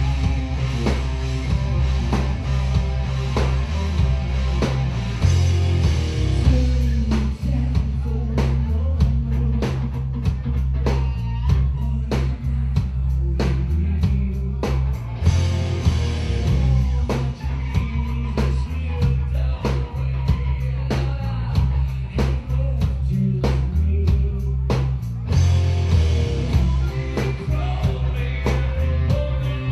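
Rock band playing live: two guitars over a heavy bass guitar line and a drum kit keeping a steady beat with regular cymbal hits.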